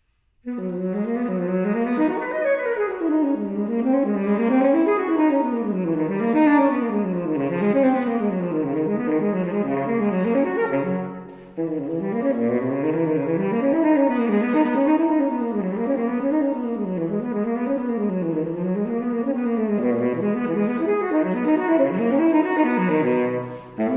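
Tenor saxophone playing a classical solo in fast, unbroken runs and arpeggios that sweep up and down. It breaks off briefly for breath about halfway through and again near the end.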